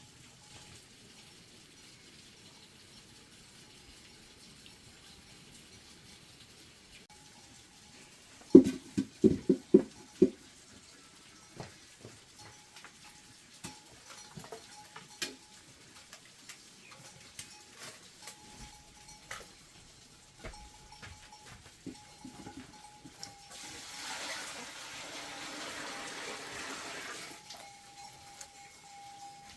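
A quick run of about six loud knocks, then scattered clicks, and near the end about four seconds of rushing, hissing noise.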